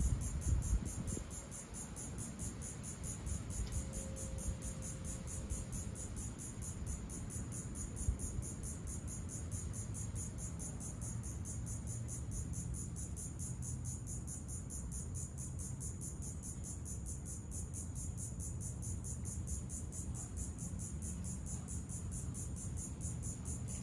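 Insects calling in a high, steady chorus that pulses evenly at about three pulses a second, over a low steady rumble.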